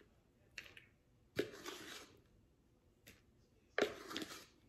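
A plastic scoop digging powdered pancake mix out of a plastic tub and tipping it into a mixing bowl: short scrapes and rustles, loudest twice, about a second and a half and nearly four seconds in.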